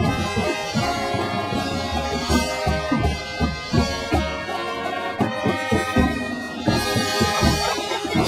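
Drum and bugle corps playing: brass horns holding chords over the drumline's frequent drum strokes.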